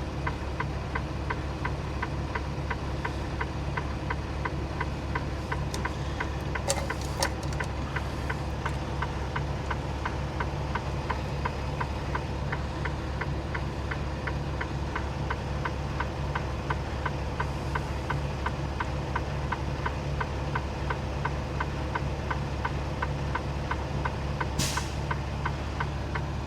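Semi-truck diesel engine idling steadily with a fast, regular clatter while the air system builds pressure back up. A short hiss near the end.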